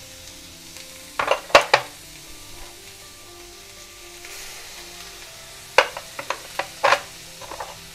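Sliced vegetables being tipped into hot oil in a stainless steel kadhai, with light sizzling and two bursts of sharp clattering knocks against the steel pan, about a second in and again near the end.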